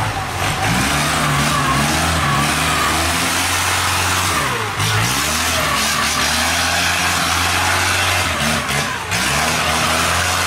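Inboard diesel engine of a long-shaft river cargo boat running at high revs under heavy load as it pushes against a strong current through a sluice gate, over the sound of churning water. Its pitch dips and comes back up twice, once about halfway through and once near the end.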